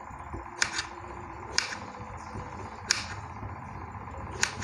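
Knife chopping bitter melon into small pieces, the blade knocking sharply on the cutting surface four times, a second or more apart.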